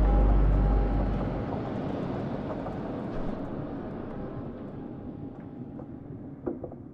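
Outdoor background noise: a heavy low rumble that stops about a second and a half in, under a hiss that fades away steadily.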